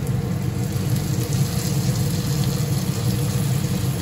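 Onions and freshly added ginger-garlic paste frying in hot oil in a pan, a steady sizzle.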